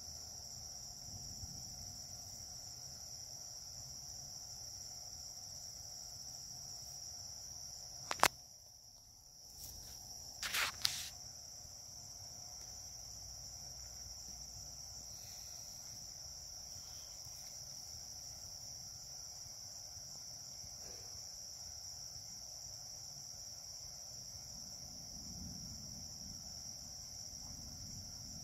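Steady chorus of crickets, a continuous high-pitched trill, over a low background rumble. A sharp click about eight seconds in, and a short cluster of clicks two to three seconds later.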